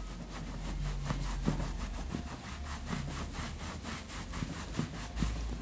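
Damp cleaning cloth scrubbing over a leather sofa cushion, a quick, even rhythm of rubbing strokes, several a second, working cleaner and soil out of the leather's grain.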